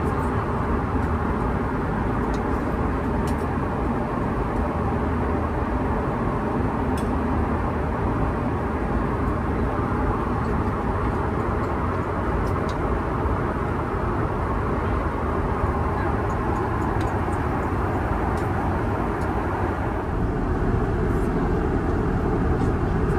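Steady cabin roar of an Airbus A330-900neo airliner in cruise, engine and airflow noise heard from inside the cabin, with a few faint clicks now and then.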